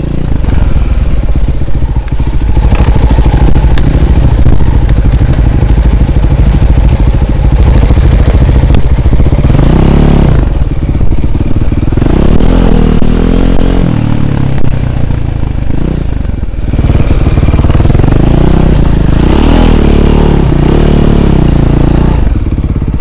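Dirt bike engine heard up close from the moving bike on a rough trail, running loud with the revs rising and falling several times as the throttle opens and closes, with short easings of the throttle.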